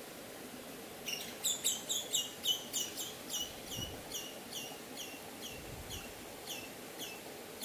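A bird calling: a long run of short, sharp notes, each dropping slightly in pitch. The notes start about a second in at about four a second and gradually slow.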